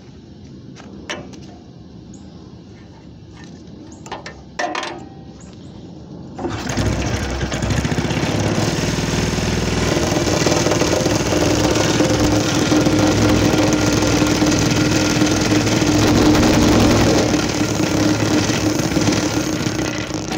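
Small old air-cooled go-kart engine starting about six seconds in and then running steadily at a fast idle, after a couple of short knocks.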